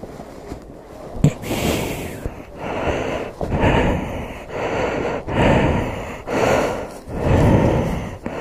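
A person breathing heavily close to the microphone inside a motorcycle helmet, in and out about once a second.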